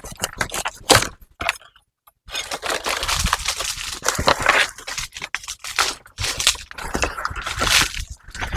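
Irregular crackling and rustling of coconut palm fronds and bunches being cut and handled.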